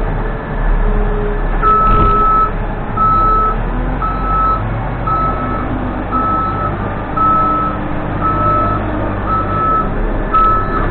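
Case 580N backhoe reversing: its diesel engine runs steadily while the reversing alarm beeps about once a second, starting shortly after the beginning.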